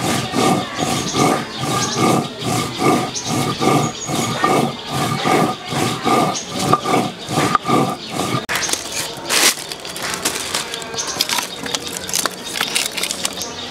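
Stone roller rubbed back and forth over a flat grinding stone (shil-nora), grinding dry chillies to paste, in about two scraping strokes a second. The grinding stops about eight seconds in. Then comes a sharp crack and lighter clatter as dry sticks of firewood are stacked in a clay stove.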